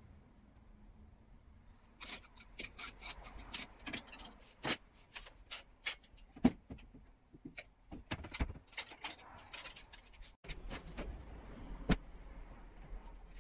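Clothes hangers clicking and clattering against a wardrobe rail as clothes are handled, with fabric rustling between the quick, irregular clicks. There is a single sharper knock near the end.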